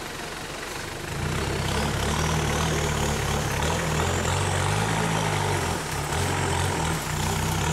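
Engine of a lifted Mitsubishi G-Wagon SUV pulling under load as it crawls through undergrowth. The low engine note swells about a second in and rises and falls with the throttle, with a faint high whine above it.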